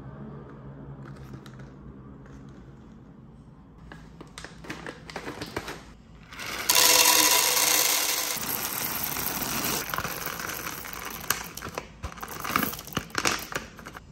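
Roasted coffee beans poured from a bag into a clear canister: scattered clicks at first, then a dense rattling pour about halfway through that thins back to scattered clicks as the last beans drop, with the bag crinkling.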